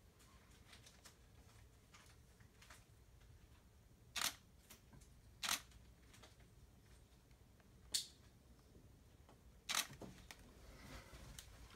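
Camera shutter firing four times at irregular intervals, each a short sharp click, with faint small handling clicks in between.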